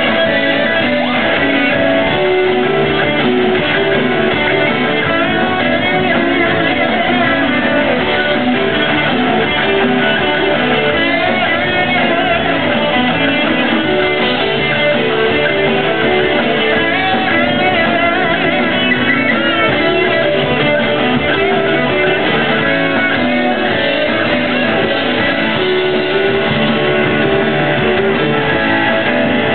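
Live rock band playing, led by guitars, with drums and keyboard, sounding muffled.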